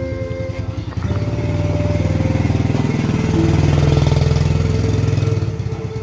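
Small motorcycle engine passing close by, growing louder over the first few seconds and fading away near the end.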